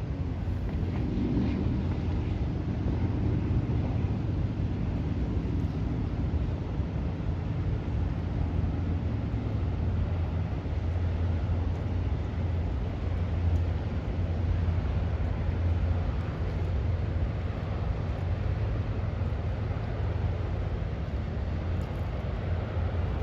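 Diesel engine of the bulk freighter Federal Ruhr, a steady low drone as the ship passes under way, with a faint hum over it that fades in the first few seconds.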